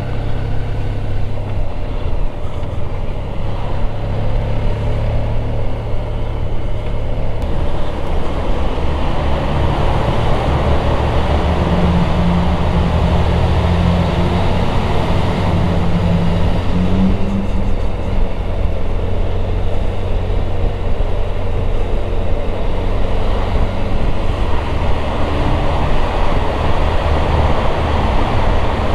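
Motorcycle engine running at road speed under wind and road noise on a rider's microphone; the engine note climbs briefly around the middle.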